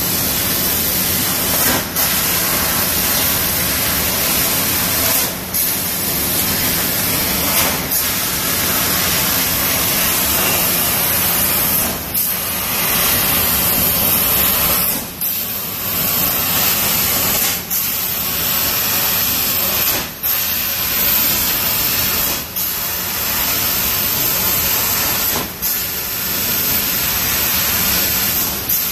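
Trumpf laser cutting machine cutting 2 mm aluminium sheet: a loud, steady hiss of assist gas jetting from the cutting head. The hiss drops out briefly every two to three seconds, as the head moves between cuts.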